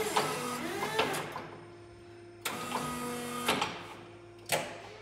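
Toyota FB-series battery-electric forklift's hydraulic pump motor whirring in bursts as the forks are worked. The whine rises and falls, with clunks. Two runs of about a second each are followed by a short burst near the end, over a steady faint hum.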